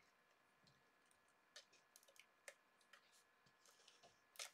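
Near silence with a few faint, scattered light clicks and taps of paper scraps being handled on a craft mat, slightly louder near the end.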